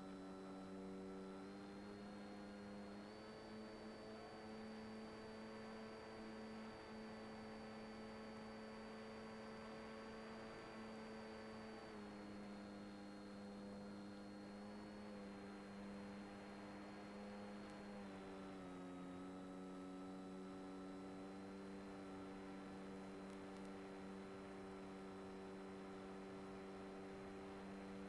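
Brushless electric motor and propeller of an FPV model plane humming steadily, heard through the onboard video transmitter's audio. The pitch steps up about three seconds in, drops about twelve seconds in and drops again near nineteen seconds as the throttle is moved.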